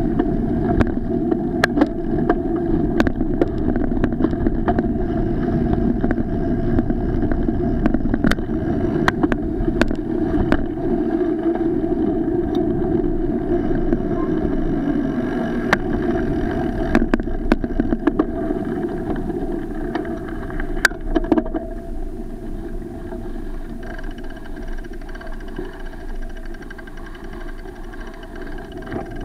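Muffled rumble of wind and road noise picked up by an action camera on a moving bicycle's mount, with frequent sharp knocks as the camera jolts over bumps. It grows quieter over the last third as the bike slows.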